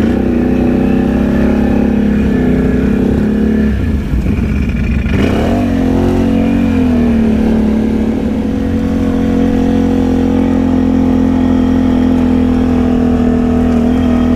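Can-Am Outlander ATV's V-twin engine running while riding. The revs drop about four seconds in, climb back a second or two later, then hold steady.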